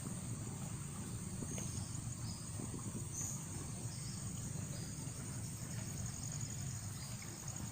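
A steady high chorus of insects, crickets or similar, with a few short chirps over it, above a steady low rumble.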